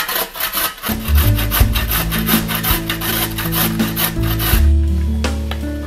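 Carrot being grated on a stainless steel box grater: quick, regular rasping strokes, about five a second. Background music with a steady bass line comes in about a second in.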